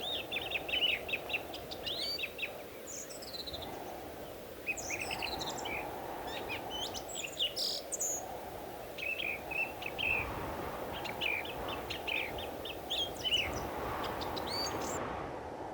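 Several birds calling in quick runs of short chirps and trills, over a steady low rushing background noise.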